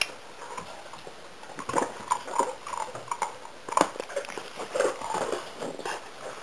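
Hound puppies making a run of short, high whines about two seconds in and a few more around five seconds, with chewing and scuffling on a dog bed as they play.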